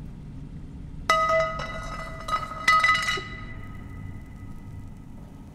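Several sharp metallic clinks, the first about a second in, each ringing on with a clear bell-like tone that fades away over the next few seconds.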